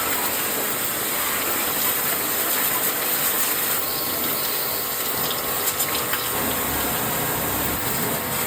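Water spray from an AC-cleaning jet sprayer hitting the air conditioner, a steady hiss over the rattle of the sprayer's pump motor; the sound shifts about four seconds in.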